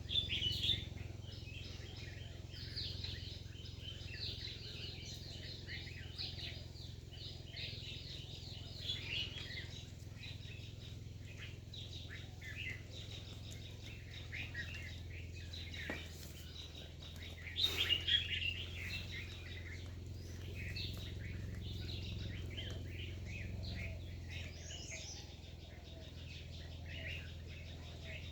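Birds chirping continuously, many short rapid chirps overlapping, with a louder burst of calls about two-thirds of the way through. A low steady hum runs underneath.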